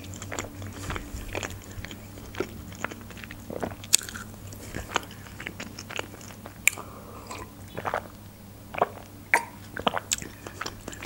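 Close-miked chewing of a fried potato wedge: irregular crunches and wet mouth clicks.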